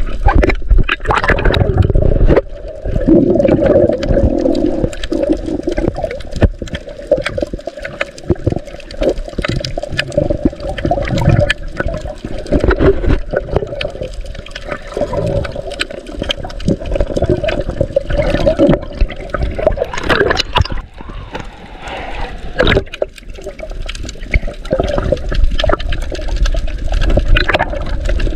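Muffled water rushing and gurgling around a camera held underwater, rising and falling in irregular surges.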